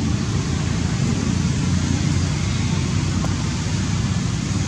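Steady outdoor background noise: a low, fluttering rumble under an even hiss, with no distinct events.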